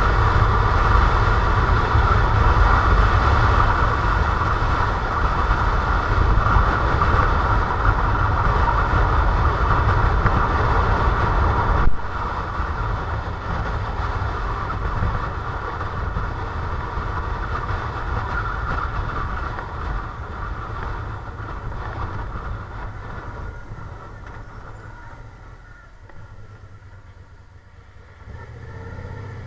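Motorcycle on the move, heard from a camera mounted on the bike: steady engine and wind noise on the microphone. A sharp click comes about twelve seconds in, after which the noise steadily dies down and is much quieter near the end.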